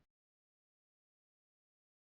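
Silence: no sound at all.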